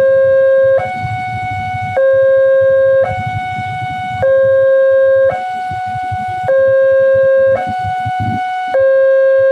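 Electronic railway level-crossing alarm sounding its two-tone warning that a train is approaching: a lower, louder tone and a higher tone alternating, each held for about a second. Engines of waiting traffic rumble underneath.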